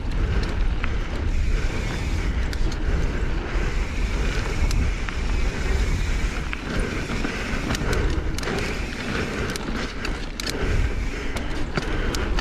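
Mountain bike rolling along dry dirt singletrack: a steady rumble of tyres and wind on the microphone, with many scattered sharp clicks and rattles.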